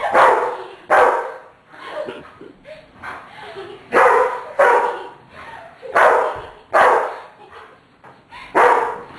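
Dog barking, about seven loud barks, mostly in pairs, with short gaps between them.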